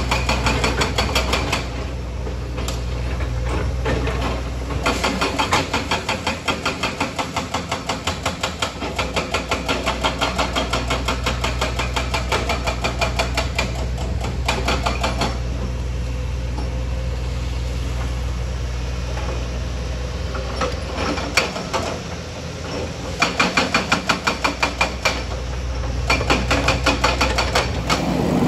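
Kobelco crawler excavator's diesel engine running steadily, with stretches of rhythmic clanking at about three beats a second from the working machine.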